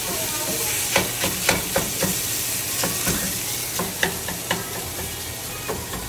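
Sausage meat sizzling in a stainless steel sauté pan, a steady frying hiss, while a wooden spatula stirs it. The spatula knocks sharply against the pan at irregular moments, several times.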